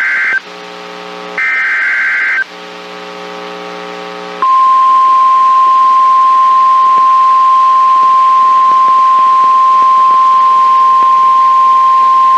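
Emergency Alert System SAME header data bursts: the end of one screeching digital burst, then a second about a second long, with a lower buzz between them. About two seconds later the steady single-pitch 1050 Hz NOAA Weather Radio warning alarm tone begins and holds, signalling that a warning message follows.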